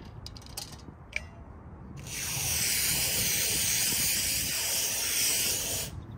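Two-component spray foam adhesive gun hissing in one continuous spray of foam for a solar panel mount. The spray starts about two seconds in, runs for about four seconds and cuts off sharply near the end. A few light handling clicks come before it.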